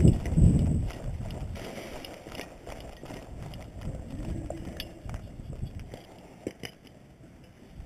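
Running footsteps with gear jostling, heaviest at the start and fading as the runner slows, followed by scuffing and a few small sharp clicks.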